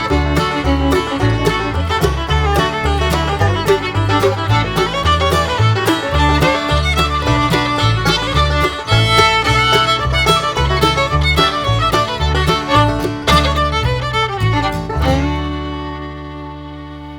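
Background music: upbeat fiddle-and-banjo tune with guitar and bass, ending about fifteen seconds in on a held chord that fades away.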